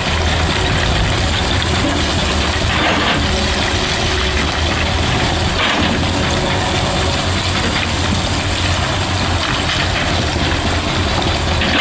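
Excavator's diesel engine running steadily under load, with a few brief louder noisy moments.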